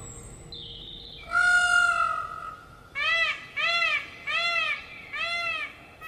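Indian peacock calling: one drawn-out call, then a series of four short, arched calls at an even pace.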